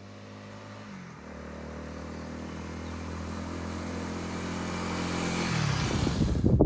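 Honda Rebel 250's single-cylinder engine running at steady speed, getting steadily louder, with its pitch dropping once about a second in and again near the end.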